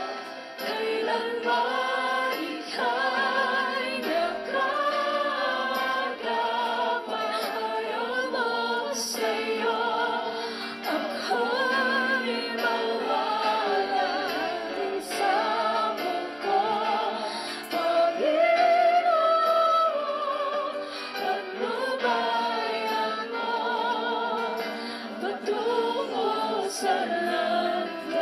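A group of voices, a choir or congregation, singing a Tagalog worship song, with wavering held notes.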